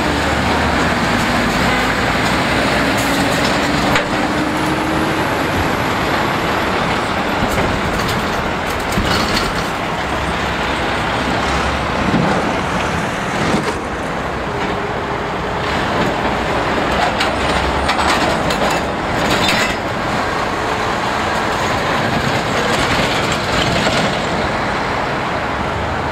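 Trucks driving past in steady road traffic, engines running and tyres on the road, with a few short sharp sounds in the middle stretch.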